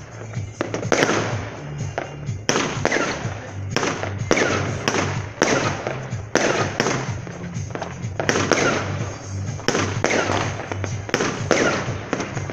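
Fireworks going off, with sharp bangs every second or so, each followed by crackling, over music with a stepping bass line.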